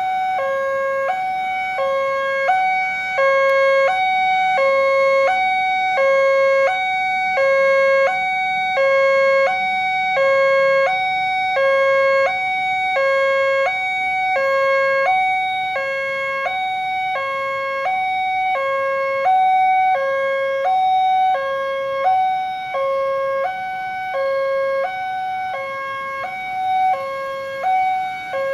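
Electronic two-tone warning alarm of an Indonesian railway level crossing, sounding from the signal's loudspeakers: a low note and a high note alternating steadily, about one and a half cycles a second, signalling that a train is approaching and the barriers are down.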